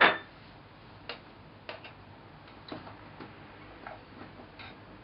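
A small plate set down on a wooden table with a sharp clack, then light, scattered taps of a rice paddle against the rice cooker's inner pot as freshly cooked rice is mixed.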